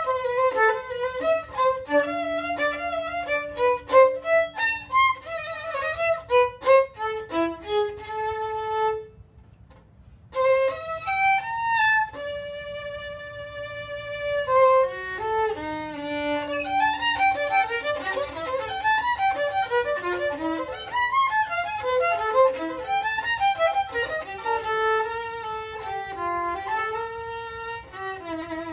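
Solo violin, bowed, playing quick runs of notes, in places with a low note held under the moving notes. It stops briefly about nine seconds in, sustains one long note a few seconds later, then returns to quick passagework.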